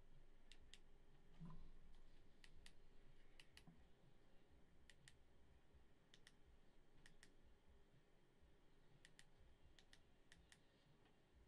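Faint clicks of the TIDRADIO TD-H3 Plus handheld radio's keypad buttons being pressed, mostly in quick pairs, about nine pairs in all, as menu settings are stepped through. There is a soft low bump about a second and a half in.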